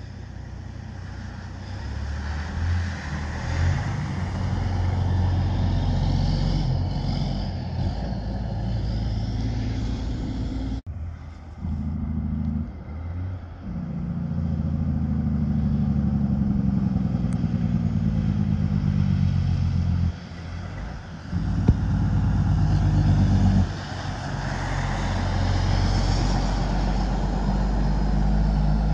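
Diesel engine of a heavy tractor-trailer garbage hauler running and passing close by, a deep low note that swells and falls. The sound breaks off sharply about eleven seconds in and dips briefly a few more times.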